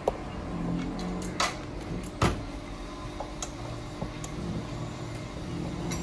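Microwave oven door being opened: two sharp clicks, the second and louder one a little over two seconds in, over a steady low hum.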